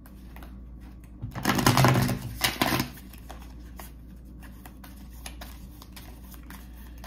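A deck of oracle cards shuffled by hand: light, quick flicks and taps of the cards, with one louder burst about a second and a half in that lasts about a second and a half.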